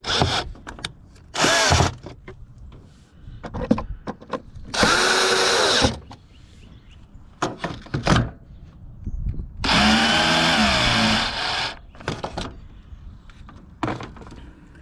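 Power drill driving the Phillips head screws back into an air filter box lid, run in four bursts of a few seconds or less, its whine bending in pitch as each screw tightens. Light clicks and knocks of handling between the runs.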